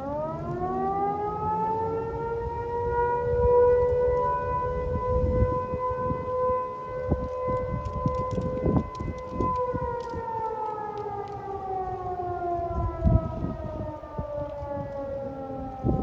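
Mechanical fire siren sounding its noon blast. It winds up at the start, holds a steady wail for about nine seconds, then winds down with falling pitch. Gusts of wind buffet the microphone throughout.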